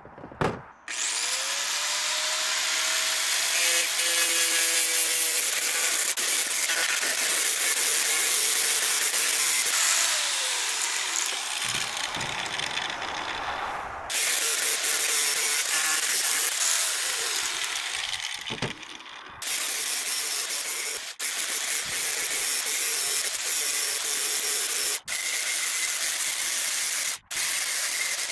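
Angle grinder spinning up, then grinding mill scale off steel bar stock with a steady harsh noise. The grinding eases off and picks up again a few times, with brief cut-outs near the end.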